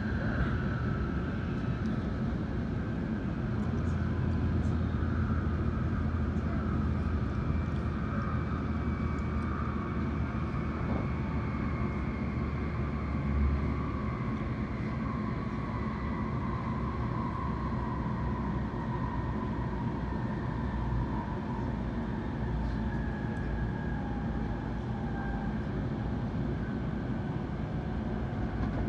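Hikari Shinkansen train running at speed, heard from inside the passenger cabin: a steady rumble with faint whining tones that fall slowly in pitch.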